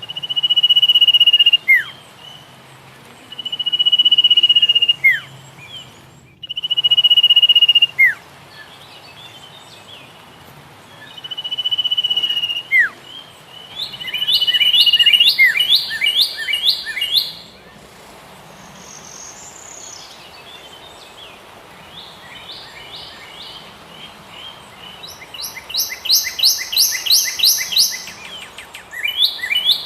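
Songbirds singing: a long, steady whistled note ending in a quick downward slur, repeated about five times, then fast trills of rapidly repeated falling notes, loudest near the end.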